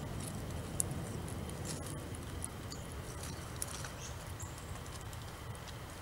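Grey squirrel eating seed at a platform feeder: small scattered clicks and crunches of seed being handled and cracked, over a steady low background rumble.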